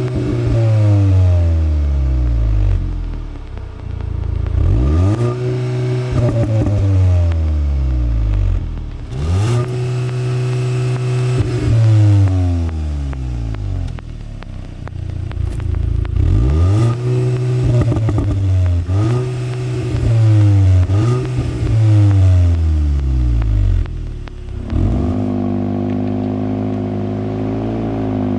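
Cupra Formentor VZ's 2.0-litre turbo four-cylinder engine and stock exhaust revved about six times in a row, each rev rising quickly, holding briefly at the same ceiling and falling back. Near the end it settles to a steady run.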